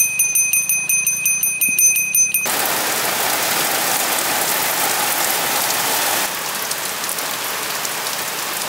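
A small brass bell rung rapidly, a quick string of ringing strokes for about two and a half seconds; then rain falling steadily on trees and a thatched roof.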